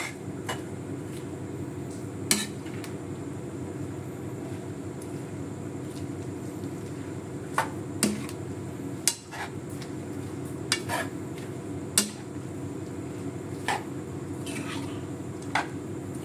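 Metal utensil stirring and tossing egg noodles and cabbage in an aluminium wok, striking the pan with sharp clinks every second or two over a steady low hum.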